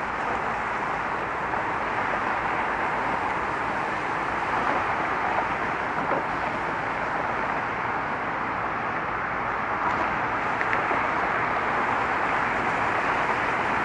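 Steady road traffic noise: the continuous hiss and rumble of many cars passing, with no single vehicle standing out.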